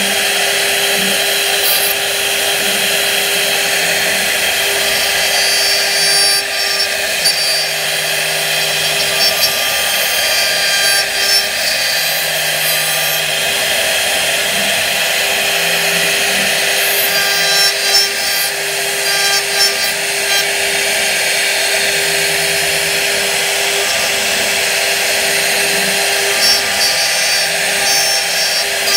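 A CNC router's spindle is running with a steady whine while its carving bit cuts relief into a wooden panel. The rasping of the wood being cut runs continuously underneath.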